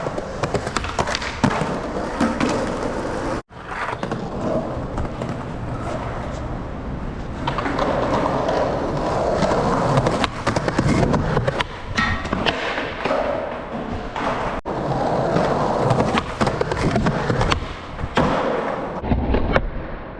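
Skateboards rolling, with repeated sharp clicks and knocks of pops and board impacts. The sound cuts off abruptly twice, about three and a half seconds in and near fourteen and a half seconds.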